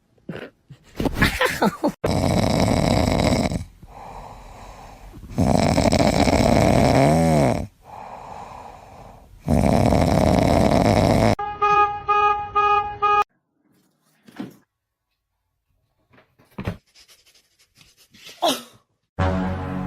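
Loud, rasping snoring breaths, three long ones each about two seconds, with quieter stretches between. They are followed by a short buzzing tone and a few scattered clicks.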